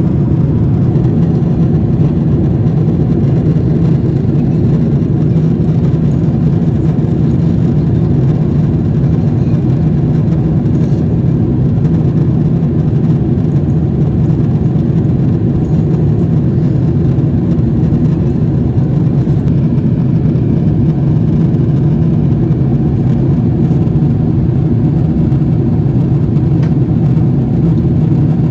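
Steady cabin noise inside a Boeing 777-300ER in flight: an even, unbroken low roar of airflow and engines with no change in pitch or level.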